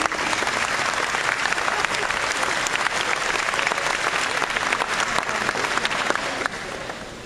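Audience applauding: dense, steady clapping that dies away about six and a half seconds in.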